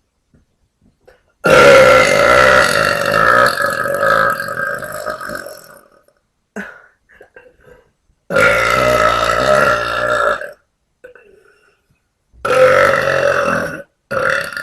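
A young woman burping loudly: three long, drawn-out burps, the first about four seconds long and trailing off, then a short one right at the end.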